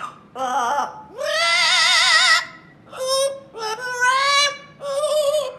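A pet parrot singing: about five warbling, pitched phrases with a strong wobbling vibrato, the longest lasting over a second.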